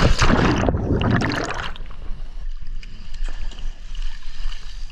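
Boat running on open water: a loud rush of spray and wind noise for the first second or two, then a steady low rumble.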